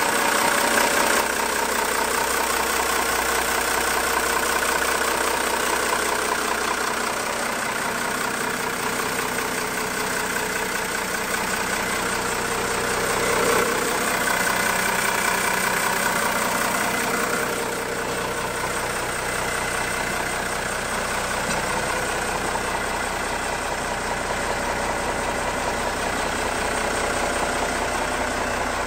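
The Cummins 6CTA8.3 turbo-diesel of a 1990 M931A2 military semi tractor idling steadily.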